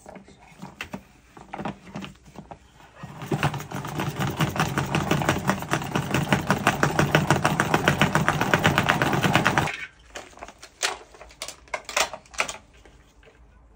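A knife chopping fast on a cutting board: a few separate knocks, then a steady run of quick, even strokes, several a second, for about six seconds that stops abruptly, followed by a few more scattered knocks.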